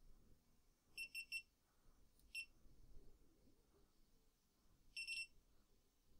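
Faint electronic status beeps from a GoPro Hero3+ action camera as it is being started up: three quick high beeps about a second in, a single beep a second later, and a double beep near the end, over faint handling noise.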